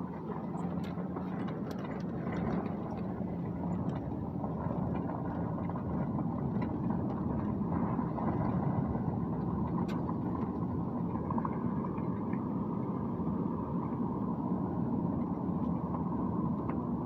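Steady road and engine noise inside a moving vehicle, with a few light ticks and rattles.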